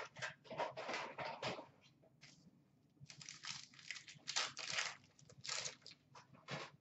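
Trading card pack wrappers crinkling and tearing as hockey packs are handled and opened, in short bursts with a lull of about a second around two seconds in.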